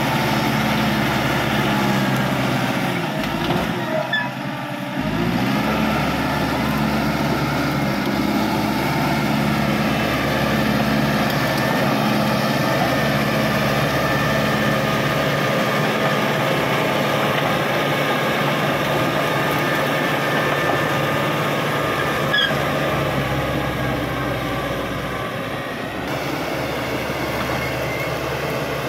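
Caterpillar D5K XL crawler bulldozer's diesel engine running steadily under working load. About four seconds in the engine note dips briefly, then rises back up.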